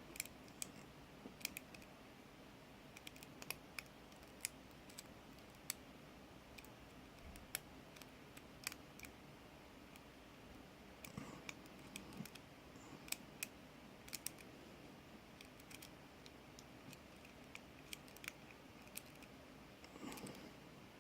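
Faint, irregular small metallic clicks of a lock pick and tension wrench working the pin stack of a brass ABUS 83/45 padlock.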